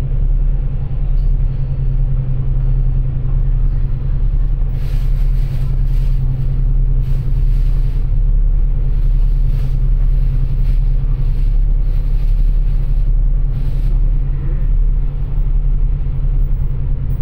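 Steady low drone of a city bus's engine and running gear, heard from inside the passenger cabin. From about five seconds in to about fourteen seconds in, short bursts of hiss come and go over it.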